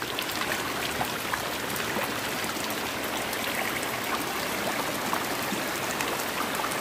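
Water flowing through a small ditch, a steady rush with scattered faint ticks.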